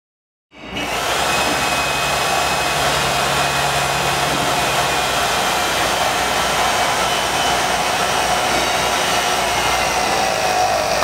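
Hydraulic pump of a 65-ton swage press running steadily under load as the press compresses a swage fitting onto a bus tube. It starts suddenly about half a second in.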